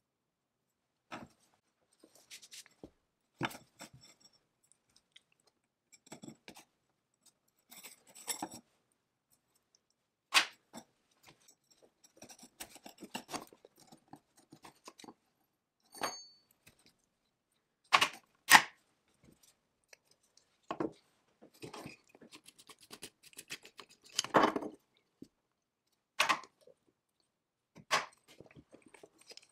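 Small metal carburetor parts of a McCulloch 99 chainsaw clicking and clinking as they are handled, slid onto the throttle shaft and set down on a wooden workbench. The taps come irregularly, with two sharper knocks close together about two-thirds of the way through.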